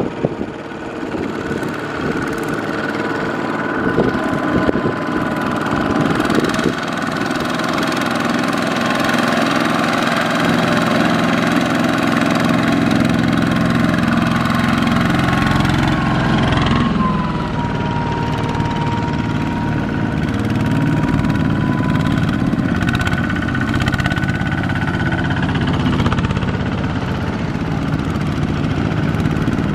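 Single-cylinder diesel engines of two-wheel walking tractors running steadily under load as they pull loaded trailers through deep mud and water.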